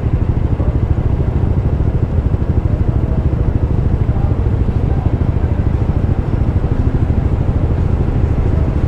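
Yamaha Aerox 155 scooter being ridden at steady speed: the engine runs evenly under a constant low, fluttering rumble of wind buffeting the microphone.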